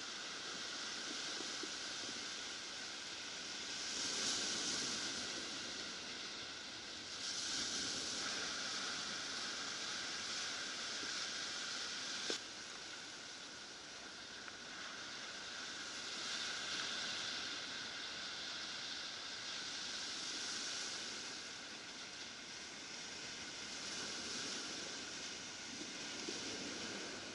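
Surf washing onto a cobble beach: a steady hiss that swells and eases every few seconds as waves come in. One sharp click about halfway through.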